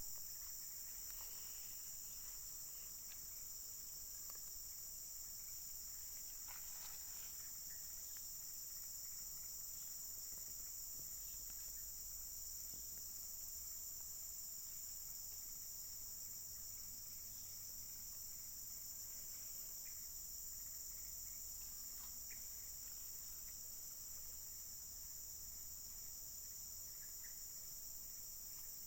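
Steady high-pitched drone of a forest insect chorus, unbroken throughout, with a few faint clicks and knocks now and then.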